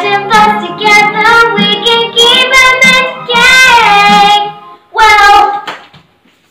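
A girl singing a show-tune solo, ending on a long held note about four seconds in, then one short sung phrase.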